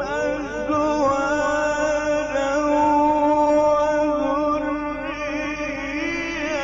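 A man's voice reciting the Quran in the ornate, drawn-out Egyptian mujawwad style, holding one long note at a steady pitch. The note steps up slightly about six seconds in, then breaks off.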